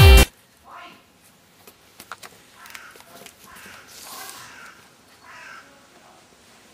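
Electronic dance music cuts off abruptly just after the start. After it come faint crows cawing, several scattered harsh calls, and a few light clicks about two seconds in.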